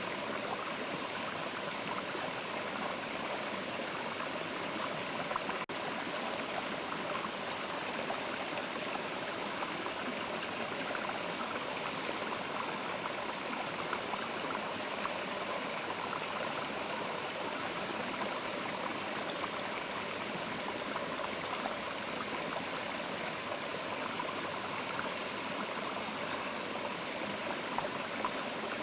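Mountain river flowing over rocks: a steady, even rush of water with no breaks.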